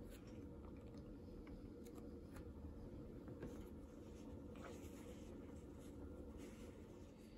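Near silence: room tone with a few faint clicks and soft rustles.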